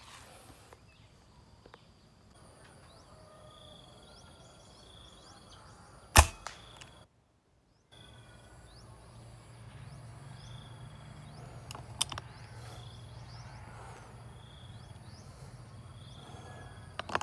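A PCP air rifle fires a single sharp shot about six seconds in. Two fainter sharp clicks come later.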